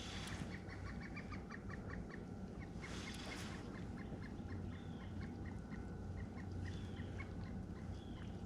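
A flock of geese honking in quick, repeated short calls, fairly faint, with a brief rushing sound at the start and again about three seconds in.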